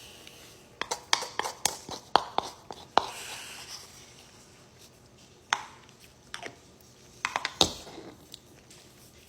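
Eating sounds: a quick run of sharp clicks and taps for about two seconds, a single click midway, and another short cluster of clicks near the end.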